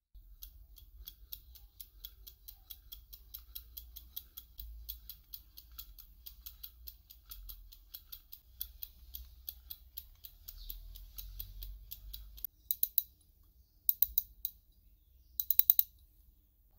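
Restored vintage spinning fishing reel being hand-cranked: its gear mechanism gives a steady run of light, even clicks, about six a second, as the rotor spins. Near the end the cranking stops and three short bursts of louder, quick clicks come as the reel is handled.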